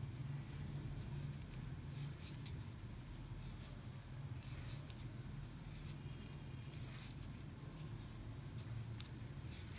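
Faint, scratchy rustling of cotton yarn drawn through a magic ring by a metal crochet hook, a few soft scrapes spread through, over a low steady hum.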